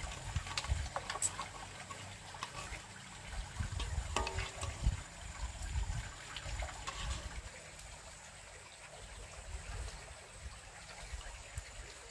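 Water trickling, with an uneven low rumble and a few light clicks.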